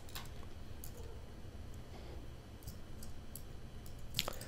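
A few faint, irregularly spaced clicks from a computer mouse and keyboard being worked, over a low steady room hum.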